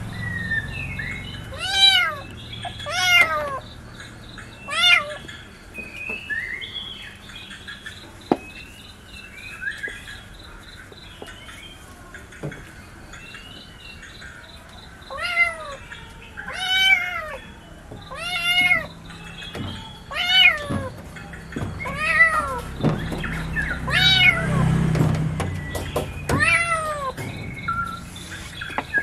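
Kitten meowing, about a dozen short, high-pitched meows that each rise and fall in pitch: three in the first few seconds, then a quieter stretch with faint chirps, then a run of meows from about halfway through.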